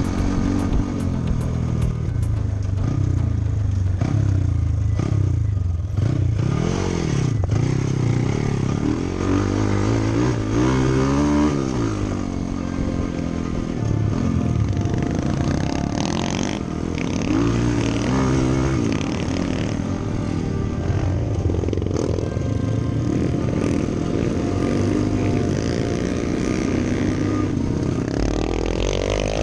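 Trail dirt bike engine revving up and down as it is ridden over rough ground, its pitch rising and falling again and again with the throttle.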